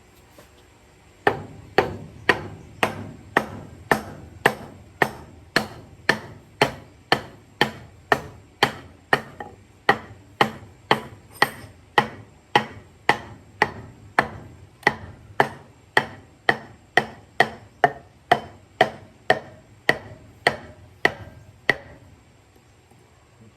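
Steady, even hammer blows on metal, about two a second, each with a short ringing decay, running for some twenty seconds before stopping.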